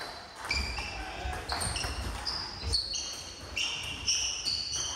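Table tennis rally: the ball clicking off the table and the bats, about two hits a second.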